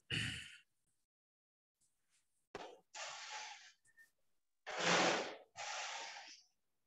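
A person's breaths close to a call microphone: three short, breathy puffs of air with a small click just before them, the loudest about five seconds in.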